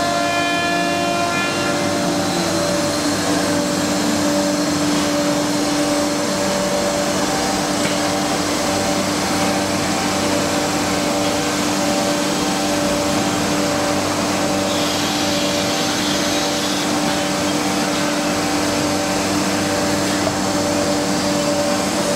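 CNC nesting router's spindle running while it routes an MDF panel: a steady whine over a broad rushing noise of the cut and dust extraction. The whine settles to a slightly lower pitch about two to three seconds in.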